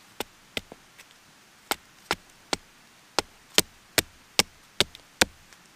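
Hatchet chopping a small piece of wood against a log: about a dozen sharp strikes, spaced unevenly at first, then settling into a steady rhythm of about two and a half a second.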